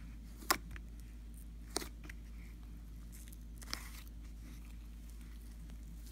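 Fluffy green slime being squeezed and pressed by fingers in its tub, giving three sharp pops of trapped air with a few fainter crackles between, over a low steady hum.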